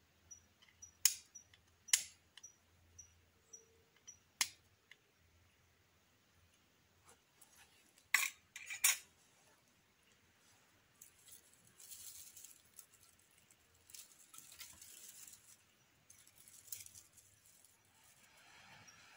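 Flint and steel being struck by hand to throw sparks: a handful of sharp metallic clicks, spaced irregularly over the first nine seconds. Then dry grass tinder rustles as it is folded around the ember, and near the end he blows into the bundle, with a faint insect ticking about twice a second throughout.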